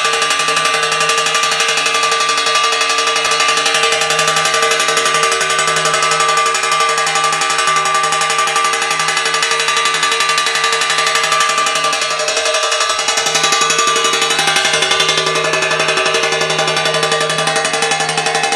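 A small 12-volt DC motor driving a striker against a stainless-steel plate, making a fast, continuous metallic rattle with a steady ringing tone: a farm noise-maker for scaring birds from crops.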